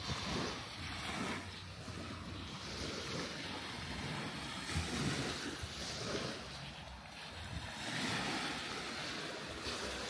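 Small waves washing up on a sandy beach, the wash swelling and fading about every three to four seconds, with some wind rumble on the microphone.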